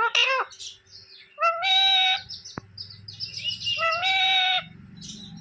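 Pet green parrot calling: quick chirps, then two long, strained, pitched squawks about two seconds apart, with more short chirps between them.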